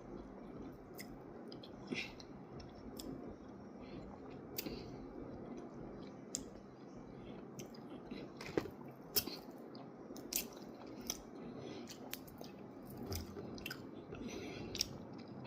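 A person chewing and biting into hot chicken wings close to the microphone, with irregular wet mouth clicks and smacks.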